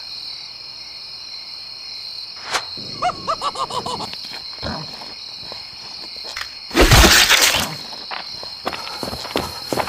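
Steady cricket-like insect chirring as background. A short rapid run of pitched stuttering notes comes about three seconds in, and one loud crash about seven seconds in, with scattered small knocks and steps after it.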